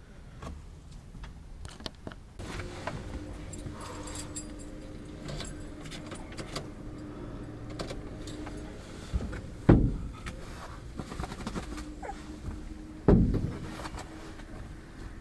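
Keys jangling and small items clicking and rattling as things are handled inside a camper van, with two heavy thumps, the first about ten seconds in and the second about three seconds later. A steady low hum starts a couple of seconds in.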